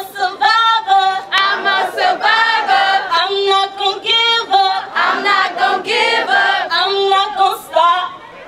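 A group of girls singing together into a microphone, with several notes held steady and no instruments underneath.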